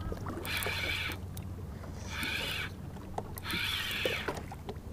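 Spinning reel being cranked in short bursts of about half a second to a second, three or four times, as a hooked lake trout is pumped in and reeled toward the boat. A low steady rumble lies underneath.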